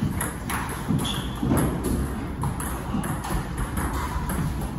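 Table tennis rally: the plastic ball clicks off the players' rubber bats and bounces on the table, about two clicks a second in a steady back-and-forth rhythm.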